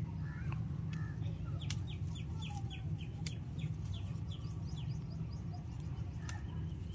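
Chickens clucking, with a quick run of about ten short high calls, about four a second, starting a couple of seconds in, over a steady low rumble.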